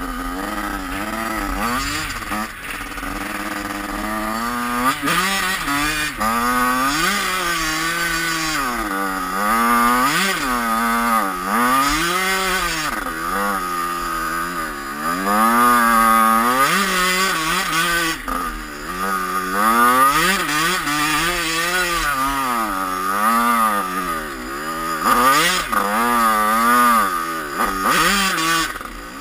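2003 Yamaha YZ85's two-stroke single-cylinder engine revving up and down over and over as the dirt bike is ridden, its pitch rising and falling every second or two.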